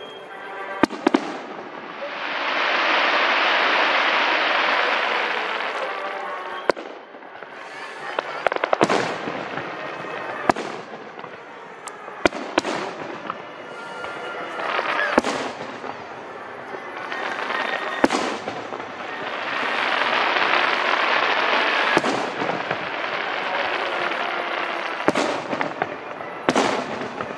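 Aerial fireworks display: sharp bangs of shells bursting, about a dozen spread through, with two longer swells of dense noise of several seconds each, one a couple of seconds in and one after the middle.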